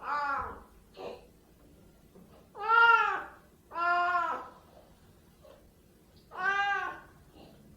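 Siamese cat meowing four times. Each meow lasts about half a second to a second and rises then falls in pitch. A short, fainter sound comes about a second in.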